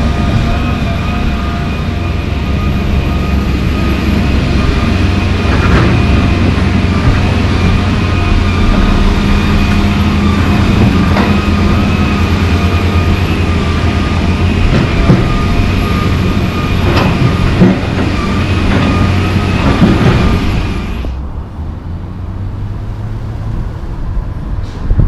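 John Deere 350D LC excavator's diesel engine running hard with a steady high whine, with scattered knocks and clanks as the bucket works broken asphalt chunks. About 21 seconds in this gives way to a much quieter low rumble with wind noise.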